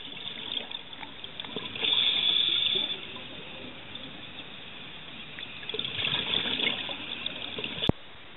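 Scuba regulator exhaust bubbles heard underwater: two gurgling bursts of exhaled air about four seconds apart, at a diver's breathing pace, over a steady underwater hiss. A single sharp click ends the second burst.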